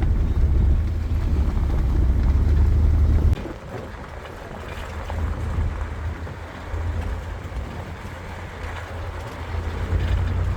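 Strong wind buffeting the microphone over the low rumble of a vehicle. The rumble drops away abruptly about three seconds in, leaving gusty wind noise that rises and falls.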